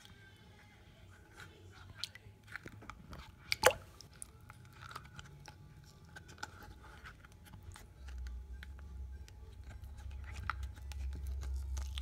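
Flexible rubber mould being peeled and flexed off a cast lump of melted tie-down strap plastic, with small crackling, squelching clicks as it pulls away and one sharper snap about three and a half seconds in. From about eight seconds a low rumble of hand-held camera handling joins in.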